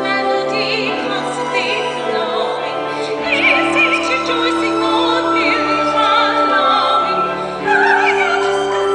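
A soprano singing a slow, operatic-style ballad with a wavering vibrato over sustained instrumental accompaniment.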